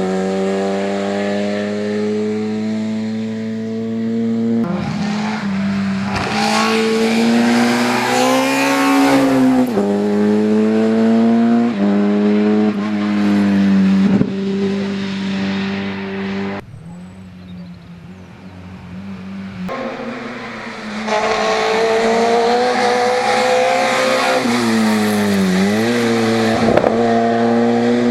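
VW Golf Mk1 rally car's four-cylinder engine pulling hard. Its revs climb and drop sharply at each upshift, several times over. It eases off for about three seconds past the middle, then pulls up through the revs again, with a quick dip and recovery near the end.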